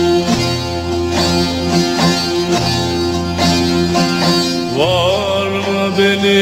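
Turkish folk song (türkü) from Buldan: a plucked string instrument plays over a steady low drone. About five seconds in, a singing voice comes in with a rising slide into a held note.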